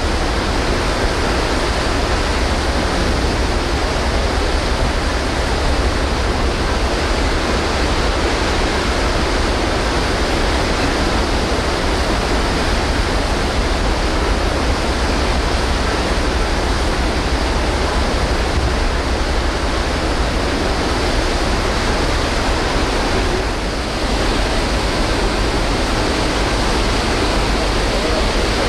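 Steady rush of sea water and wind on the deck of the ferry Blue Star Patmos under way, over a low rumble.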